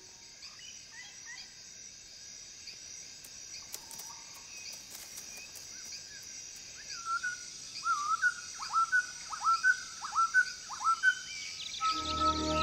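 Jungle ambience with a steady hiss and scattered faint bird chirps. About seven seconds in comes a run of about nine quick chirps, each a short swooping call. Music starts just before the end.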